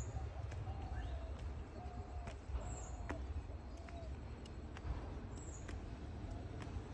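Birds calling outdoors: short chirping calls repeated about once a second, with a thinner, higher chirp every few seconds, over a steady low rumble.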